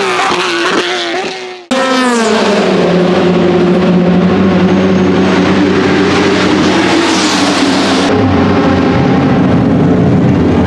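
A race car engine falling in pitch, fading and cutting off; then, about two seconds in, a Porsche 996 GT3 race car's 3.6-litre flat-six running loudly at low revs, easing down in pitch and settling into a steady drone.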